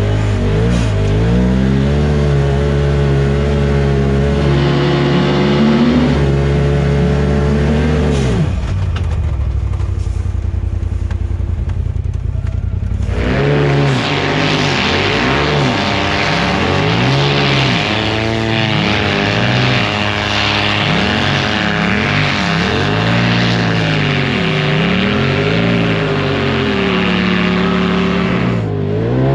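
Side-by-side UTV engines running hard on snow. The pitch holds fairly steady for the first several seconds. From about thirteen seconds in, the revs rise and fall again and again as the machines slide under throttle.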